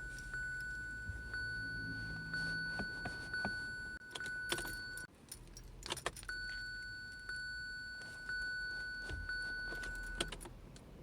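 Car keys jangling and clicking in the ignition of a 2017 Kia Sorento as the key is turned again and again without the engine starting. Between tries a steady high electronic tone runs, with a faint tick about once a second, and it cuts off each time the key is worked.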